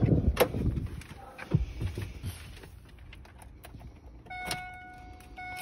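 Knocks and rustling of someone getting into the driver's seat of a 2001 Ford Focus, then keys at the ignition. About four seconds in, after a click, the car's steady electronic door-open warning tone starts, with a brief break near the end.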